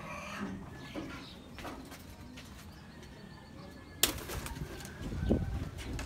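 Pigeons in a loft: soft cooing, then a sharp clap about four seconds in and a flurry of wing flaps as a pigeon flies up and lands on the grain feeder.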